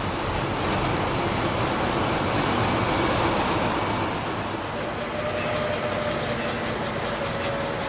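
MaK 240B diesel locomotive running as it rolls slowly past with its freight wagons, engine and wheel noise loudest about three seconds in. After about five seconds the noise eases and a steady hum remains.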